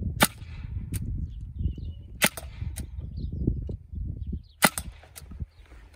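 Sig Sauer Virtus .22 semi-automatic PCP air rifle fired three times, about two seconds apart: a loud crack from the unsuppressed muzzle each time, each followed by a fainter tick.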